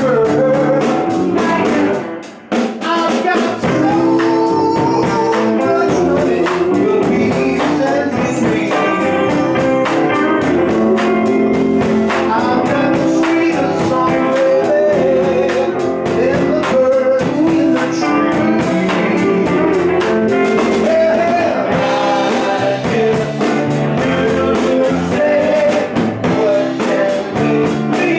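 Live band playing a blues-rock number on electric guitars and drum kit, with a brief break in the sound about two seconds in.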